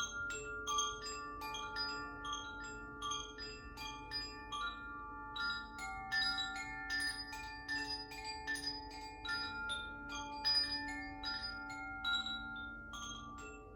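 Makino-style healing chimes being struck one after another, a few strikes a second, each clear metallic note ringing on and overlapping the next.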